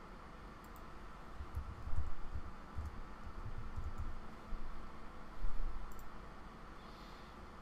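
Typing on a laptop keyboard: scattered keystrokes, heard as faint clicks and soft low thuds, entering a short word.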